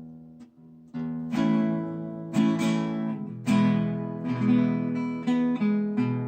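Restored vintage acoustic guitar strung with flatwound strings, played as a tune: chords and notes struck one after another, each ringing on and fading, starting about a second in after a soft opening note.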